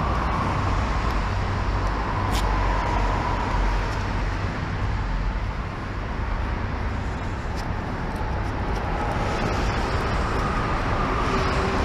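Sportbike riding along with its engine running steadily under wind and road noise. The engine's pitch sinks slowly and then rises again.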